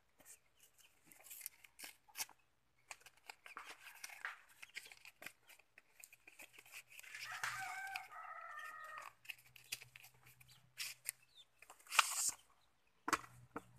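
Cardboard packaging rustling, scraping and clicking as a boxed air-rifle silencer is slid out by hand, with a loud rustle about twelve seconds in. A chicken calls in the background for a couple of seconds about halfway through.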